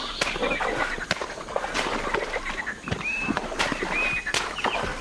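Axes chopping wood, with sharp strokes at an irregular pace of about one a second, and short high bird chirps between them.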